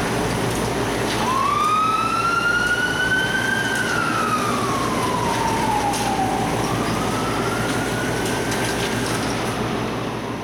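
Fire engine siren wailing in a slow rise and fall of pitch over a steady background noise. It comes in about a second in, sinks to its lowest around six seconds, then climbs again.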